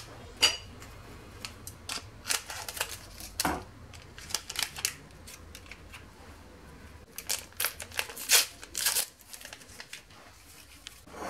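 Small paper sachets of baking powder and cocoa being opened and handled: scattered short crinkles and rustles in clusters, loudest about eight to nine seconds in.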